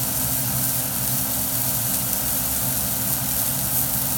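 A steady low motor hum under a constant hiss.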